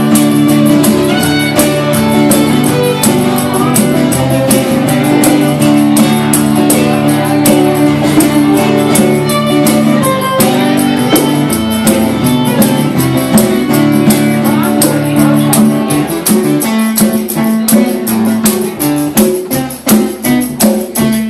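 Instrumental break of a folk ballad: a fiddle carries the melody over a strummed guitar with a steady beat. The low held notes drop away about three quarters of the way through.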